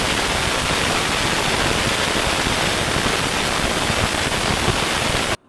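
Small electric blade grinder running steadily as it grinds rice into flour, then cutting off abruptly about five seconds in.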